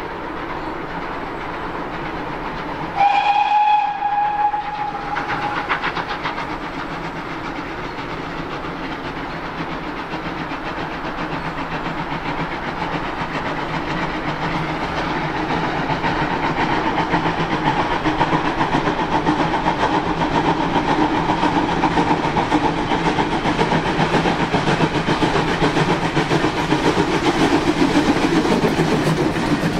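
Two GWR 64xx Class 0-6-0 pannier tank steam locomotives double-heading a train. A steam whistle sounds once for about a second and a half, about three seconds in. Then the engines' working exhaust and the clatter of the train on the rails grow steadily louder as they approach and pass close by.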